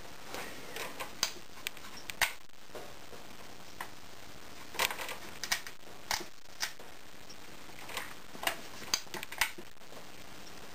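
Irregular clicks of front-panel pushbuttons being pressed on bench test instruments, some in quick clusters, as the Datron 1045 DC voltmeter's range is switched and the calibrator is set to the next range.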